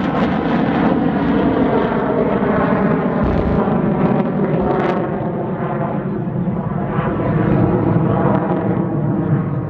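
F-16 Fighting Falcon jet engine in afterburner: loud, steady jet noise as the fighter climbs away.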